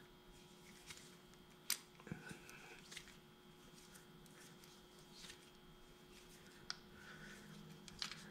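Faint handling noise and scattered small clicks of a braided fuel hose and its AN fittings being screwed together by hand, with one sharper click just under two seconds in.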